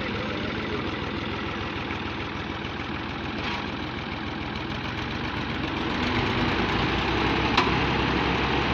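Diesel tractor engine running steadily close by, getting louder and deeper about six seconds in, as tractors are set to tow a trolley out of the mud. A single sharp click near the end.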